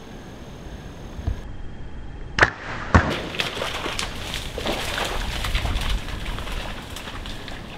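Bow shot at a sika deer hind: two sharp snaps about half a second apart, the second the loudest. Then several seconds of crashing and rustling in the brush.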